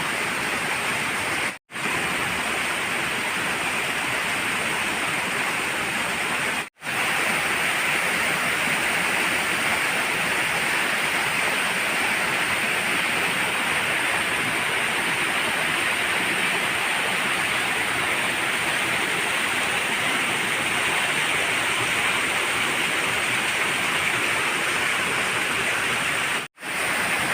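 Waterfall and the stream below it rushing: a steady, even roar of falling and flowing water that cuts out to silence three times for an instant.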